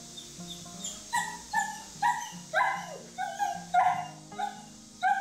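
A dog yelping in a quick series of short, high-pitched barks, about two a second, starting about a second in.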